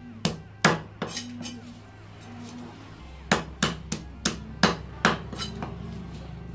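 A knife striking a rohu fish lying on a wooden log chopping block as its scales are knocked off, giving sharp knocks against the wood. There are three near the start, then a quicker run of about seven from about three seconds in.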